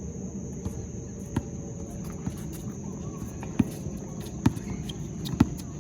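A basketball bouncing on a hard court, four or five sharp bounces roughly a second apart, over a steady high chirring of crickets.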